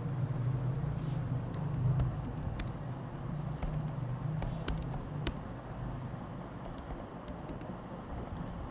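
Typing on a computer keyboard: irregular, separate keystrokes over a steady low hum.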